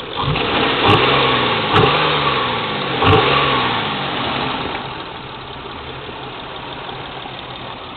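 1996 Nissan Maxima's V6 idling with the hood open, louder for the first four seconds or so with three sharp clicks, then settling to a quieter, even idle. The engine is misfiring: it is logging a cylinder 5 misfire code even with new coils and plugs, and the owner calls the sound weird.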